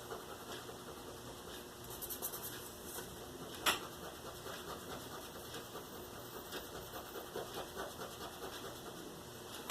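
Faint scratching and light handling noises, with one sharp click a little under four seconds in.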